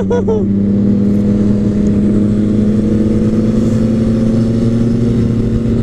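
Motorcycle engine running at a steady cruise, its note climbing slowly as it gathers speed.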